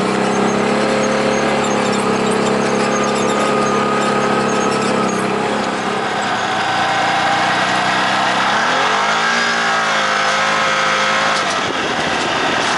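Off-road vehicle engine running as it drives along a dirt trail, its revs dipping and then climbing again about nine seconds in.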